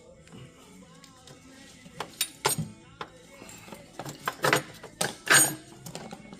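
Metal clinks and knocks as steel parts of a John Deere 450C dozer's steering clutch and brake assembly are worked into place by hand. A few scattered taps come first, then louder clanks in the second half.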